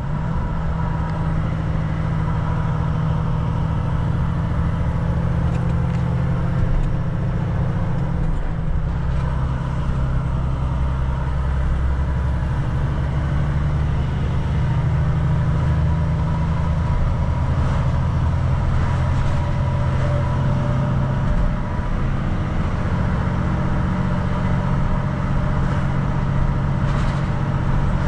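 Volvo FM4 truck's diesel engine running while driving, heard from inside the cab, a deep steady drone over road noise, its note shifting a few times as speed or gear changes.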